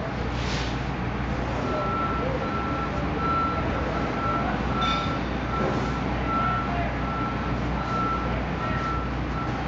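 A vehicle's reversing alarm beeping steadily on one pitch, about two beeps a second, starting about two seconds in, over a steady low hum.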